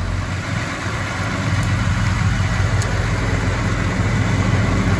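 Farm tractor's diesel engine running steadily, a low drone.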